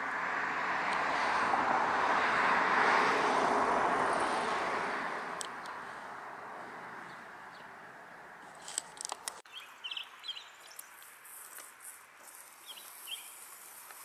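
A vehicle passing by, its sound swelling over the first three seconds and fading away by about six. Later, a few short bird chirps.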